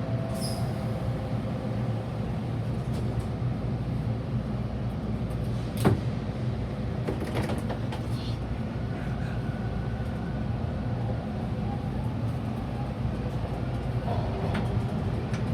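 Bombardier T1 subway train running, a steady rumble and hum heard from inside the driver's cab, with one sharp click about six seconds in and a few fainter clicks after it.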